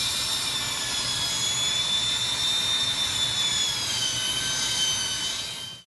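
Electric drill spinning a sanding pad against a turned wooden bowl: a steady high whine that drops a little in pitch about four seconds in, then stops abruptly near the end.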